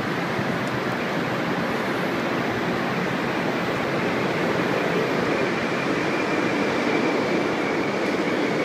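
Shinkansen train pulling into the platform: a steady rushing run that grows slightly louder, with a faint high squeal of the brakes or wheels coming in during the second half.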